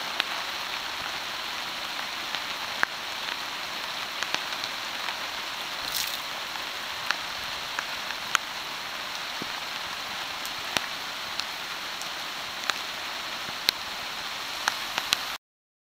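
Steady rain falling, an even hiss with scattered sharp ticks of single larger drops landing. It cuts off suddenly near the end.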